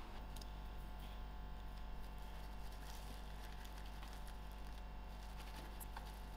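Faint rustling and light ticks from handling and trimming freshly pulled methi seedlings, over a steady low hum.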